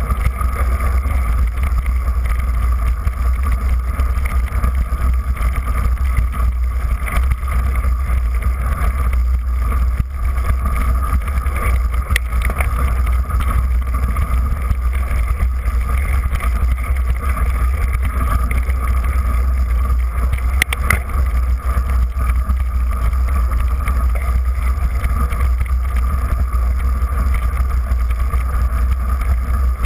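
Steady wind and vibration rumble on a bike-mounted action camera while riding a mountain bike over a snowy trail, with a couple of short knocks from bumps.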